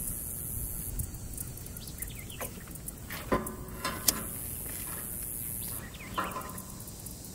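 A few sharp clicks and light rustles as a disposable lighter is struck and held to dry wood shavings under kindling. A high insect buzz runs behind, dropping out for a moment near the middle.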